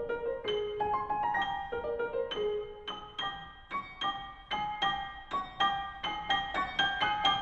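Background piano music: a run of single struck notes, each ringing away, growing quicker and busier in the second half.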